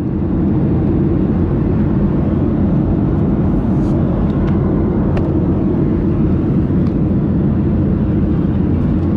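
Steady rumble of a Boeing 737-800's engines and airflow heard inside the cabin, with a few faint ticks and rattles.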